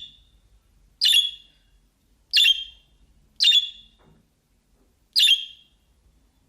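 Pet budgerigar giving short, sharp chirping calls, four in a row about one to two seconds apart.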